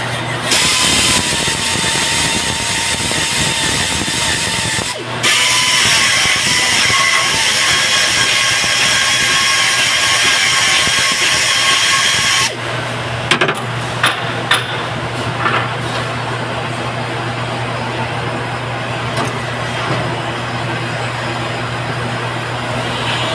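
TIG welder arc on an aluminium Ford Triton cylinder head, buzzing and hissing over the welder's steady low hum. The arc runs in two stretches, with a short break about five seconds in, then stops about halfway through. Only the hum and a few clicks remain after that.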